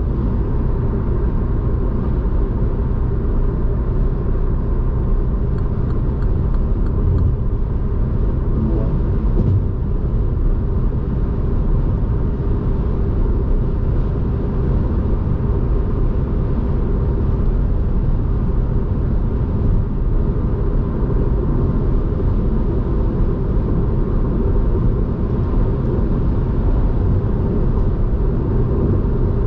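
2015 MINI One 1.2 hatchback, a three-cylinder turbo petrol, driving at motorway speed: a steady engine drone under a constant rumble of tyre and road noise, with no change in revs.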